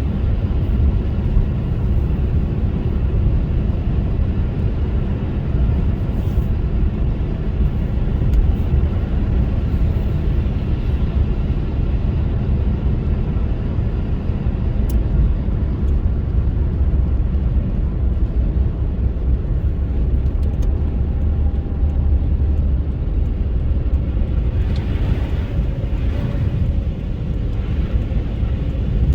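Car driving on a snowy road: a steady low rumble of tyres and engine, with a brief hiss near the end.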